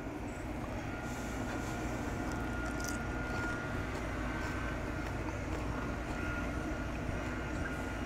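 Steady outdoor background rumble with an even hiss and a faint steady high tone, like distant traffic or a far-off aircraft.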